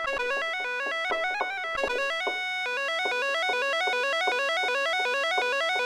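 Korg Minilogue Bass analogue synthesizer playing a rapid run of stepping notes that rise and fall, with its delay switched to bypass, so the notes sound without echoes.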